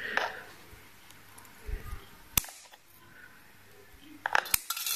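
Wire cutters snipping a freshly wrapped 24-gauge 316L stainless steel coil wire: one sharp click about halfway through, then a quick cluster of sharp clicks near the end.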